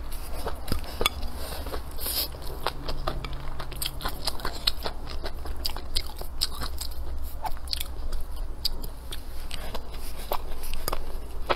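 Close-miked chewing of a mouthful of crisp stir-fried velvet antler mushrooms and rice, a fast, irregular run of small crunching clicks.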